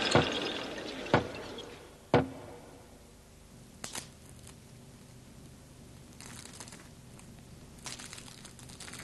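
Three loud hits about a second apart, each ringing out briefly. Then a couple of soft clicks and faint papery rustling as a deck of playing cards is handled in its cardboard tuck box.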